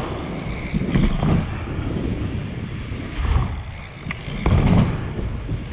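BMX bike rolling over wooden park ramps: a steady rumble of tyres on the ramp surface with wind buffeting the microphone. There are a few low thumps about a second in and again near the end, as the bike hits transitions.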